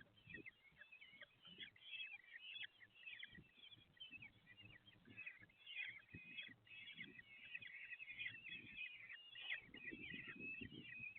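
Common kestrel chicks calling: faint, continuous rapid high chirps, with soft low knocks and rustling from movement in the nest that grow busier near the end.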